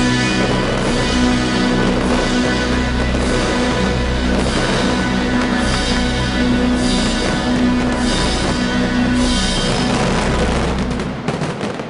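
Loud soundtrack music with a low repeating bass pattern; it drops away just before the end.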